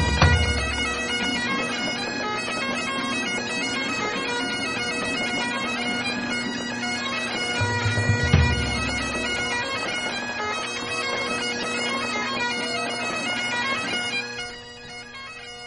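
Bagpipe music: steady drones under a melody, with deep booms at the very start and about eight seconds in. The music drops in level near the end.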